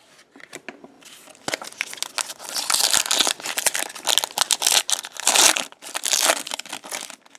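Plastic wrapper of a baseball card pack being torn open and crinkled in the hands, a dense crackling rustle that swells twice.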